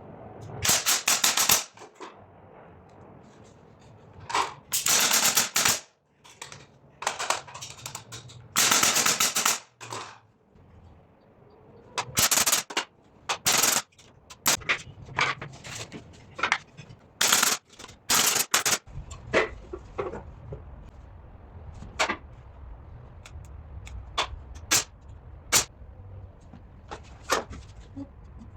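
Woodworking tool work: several bursts of rapid sharp clicking, each lasting about a second, followed in the second half by scattered single sharp taps and knocks.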